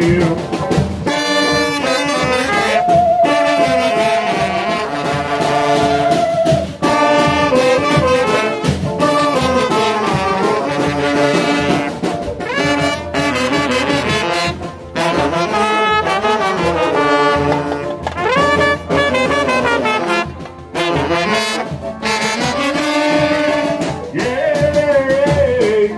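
A Brazilian carnival brass band plays a marchinha, with trumpets and trombones carrying a lively melody.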